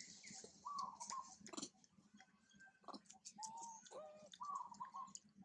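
Baby long-tailed macaque calling: several short, faint coos that rise and fall, with a few sharp clicks in between.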